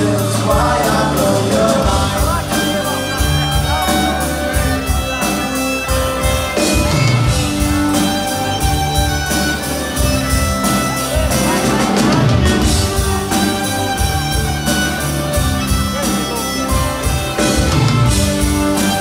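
Live folk-punk band playing: fiddle, acoustic and electric guitars, bass and drums, with a steady driving drumbeat.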